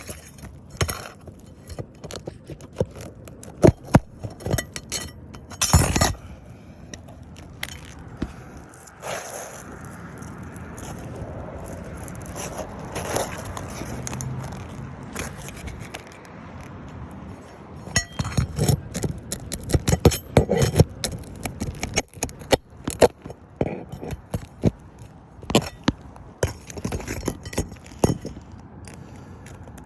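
Scraping, clicking and clinking of nails being pried out of old, brittle 3-tab asphalt shingles, in irregular sharp knocks with a louder thump about six seconds in and a busy run of clicks in the last third.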